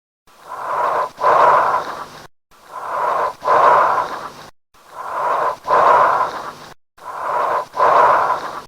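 Auscultated breath sounds, as heard through a stethoscope: four breaths at an even pace, each a shorter, softer inhalation, a brief pause, then a longer, louder exhalation.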